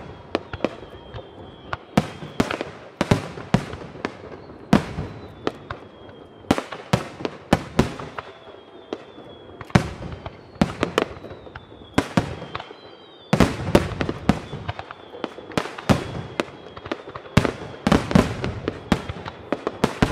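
Aerial firework shells bursting overhead, one sharp bang after another at uneven intervals, thickening into a denser, louder barrage about two-thirds of the way in.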